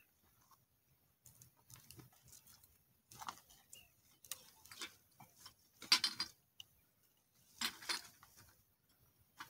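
Irregular rustling and crackling as someone moves through dry brush picking up litter: a handful of short bursts a second or two apart, the loudest about six seconds in.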